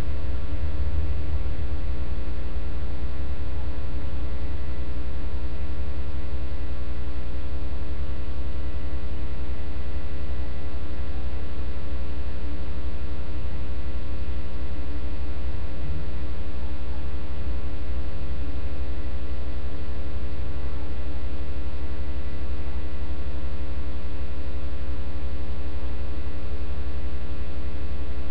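Loud, steady electrical mains hum with a stack of buzzy overtones, unchanging throughout.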